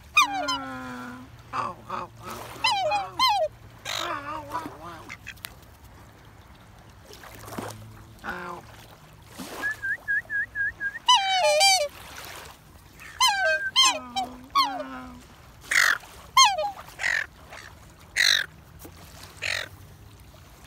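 Black swans and ducks calling at close range: a run of short, wavering honking calls, with a quieter stretch about six seconds in.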